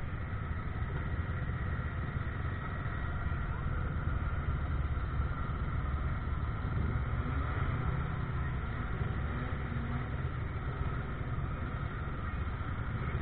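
Steady low rumble of a vehicle running.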